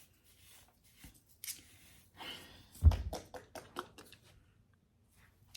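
Close handling noise from hands working hair: soft rustles and scattered clicks, with a dull knock about three seconds in followed by a quick run of sharp ticks.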